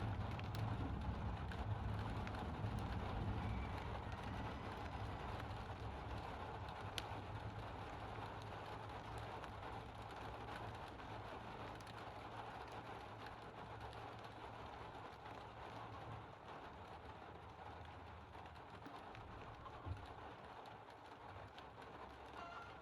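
Steady rain falling, with the low rumble of rolling thunder dying away over the first several seconds.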